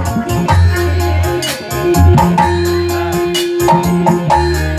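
Live band music: a drum kit and cymbals struck with sticks over a steady bass line and a melody.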